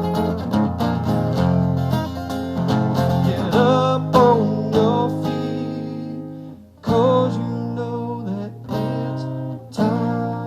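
Song ending on acoustic guitar: strummed chords with a wavering melody line over them, breaking off about six and a half seconds in, then a few single chords struck and left to ring.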